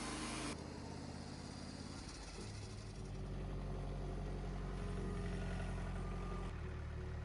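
An engine running steadily, with abrupt changes in pitch and level about half a second, two and a half and six and a half seconds in.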